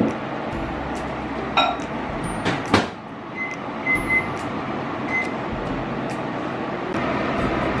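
Wooden spatula scraping and knocking against a non-stick frying pan while stirring eggs cooking on an electric stove, over a steady hiss and hum. There are a couple of sharp knocks between about one and a half and three seconds in, the loudest near the three-second mark.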